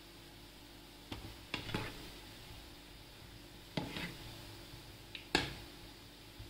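Steel spoon stirring gulab jamun balls in hot frying oil, knocking and scraping against the frying pan in a few short strokes, the loudest near the end, over a quiet steady sizzle of the oil.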